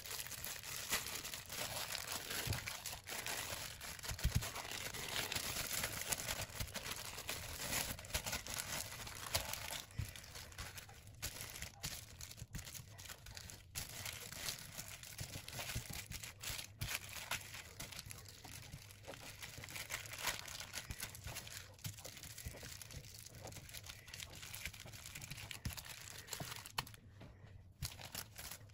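Thin clear plastic bags crinkling and crackling as they are handled and rolled by hand around portions of raw naem (Thai fermented pork) mixture: a continuous run of small crackles that dies down near the end.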